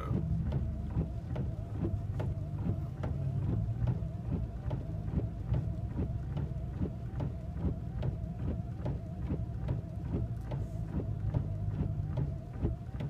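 Vehicle engine running with a steady low hum, with a stream of short irregular clicks over it.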